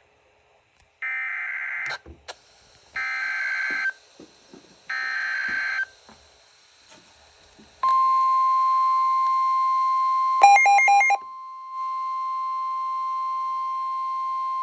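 Emergency Alert System warning: three one-second bursts of warbling digital header data, then a long steady single-pitch attention tone. About two and a half seconds into the tone, rapid beeping briefly cuts across it.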